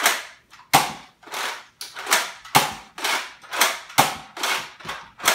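Nerf Mega Rotofury pump-action dart blaster being pumped and fired in rapid succession: a run of sharp plastic clacks and shots at roughly two a second.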